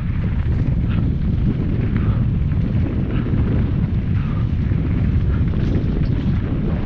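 Heavy wind buffeting and rumble on the camera microphone while riding along a rough dirt trail, a steady low noise with faint short chirps now and then.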